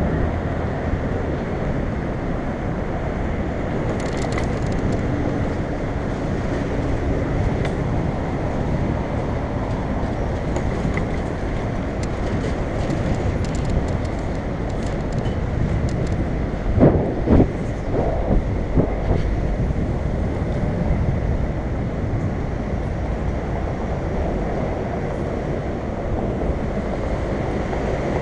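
Steady wind rush and road rumble on a helmet-mounted camera as a bicycle rides along a city road in traffic. Scattered light ticks come through in the first half, and a few sharp knocks land a little past halfway.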